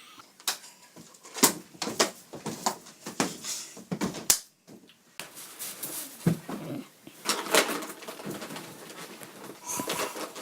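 Irregular sharp clicks and knocks with rustling noise in between.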